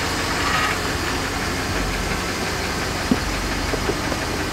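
Vehicle engine idling steadily, with a few light clicks a little after three seconds in.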